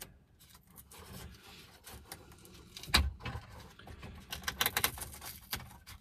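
Small plastic clicks and scrapes of car interior trim being prised loose with a plastic trim tool, with one sharp snap about halfway and a quick run of clicks near the end.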